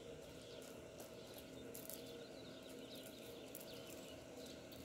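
Faint birds chirping in the dawn chorus: scattered short, high chirps over a steady low hum.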